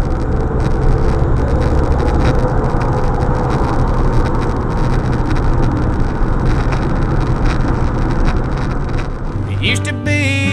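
Steady road and engine noise inside a car cruising on a freeway: a low rumble with tyre rush. A country song with singing starts near the end.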